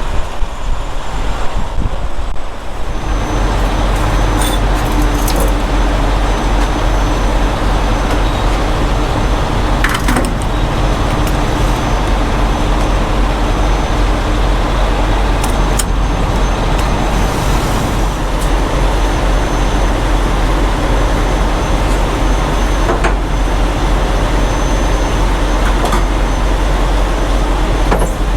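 Semi truck's diesel engine running steadily, settling into an even rumble about three seconds in, with a few sharp knocks over it.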